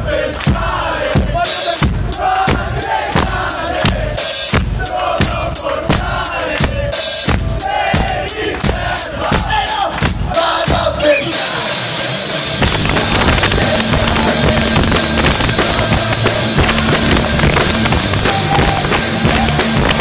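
Live rock band on stage: a steady bass drum beat with the crowd chanting along over it, then about eleven seconds in the full band comes in and plays loud rock with drums and guitars.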